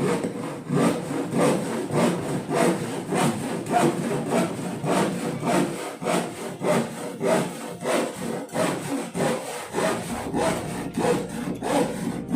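Hand saw cutting through wood in steady back-and-forth strokes, about two to three a second.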